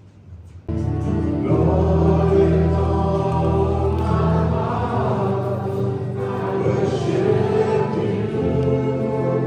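Gospel choir singing with musical accompaniment, cutting in abruptly under a second in.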